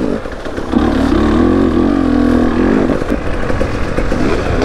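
KTM 250 two-stroke enduro bike's engine running under throttle on the trail. Its pitch climbs about a second in, holds for a couple of seconds, then drops back.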